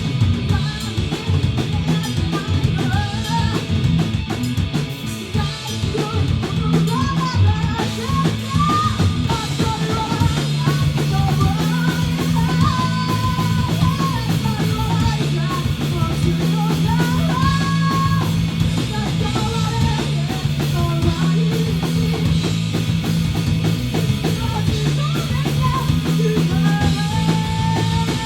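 Three-piece rock band playing live: drum kit, guitar and bass, with a wavering melody line above the band.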